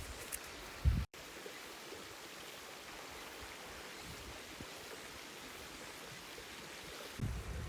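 Steady rushing of a mountain river's flowing water. There is low rumbling on the microphone in the first second and again near the end.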